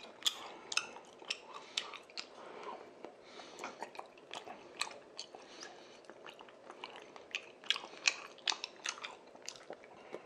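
Close-miked chewing of chewy, sauce-coated tteokbokki rice cakes, with irregular sharp wet mouth clicks several times a second.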